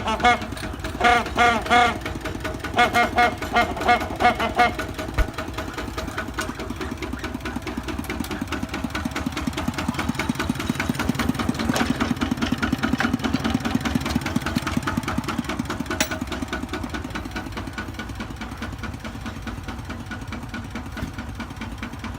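A truck-style horn on a Kubota tractor sounded in a quick series of short blasts over the first five seconds, followed by the tractor's engine running steadily, getting louder for several seconds in the middle and then easing off.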